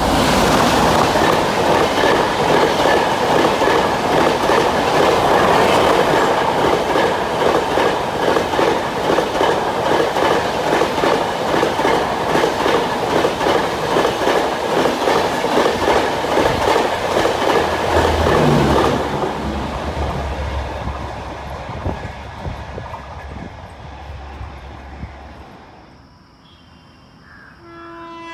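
Diesel-hauled express train passing at speed close by: the locomotive rushes past, then the coaches go by with a fast clickety-clack of wheels over rail joints, and after about nineteen seconds the sound fades away as the train recedes. Near the end, a distant train horn begins to sound.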